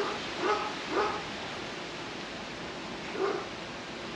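A young wolf giving four short, whining yips: three in quick succession in the first second and one more about three seconds in, over a steady background hiss.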